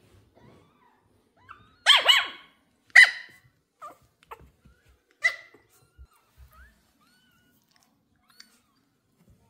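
Excited Pomeranian puppy barking: a quick double bark about two seconds in, another a second later, and a third about five seconds in, with fainter small sounds between.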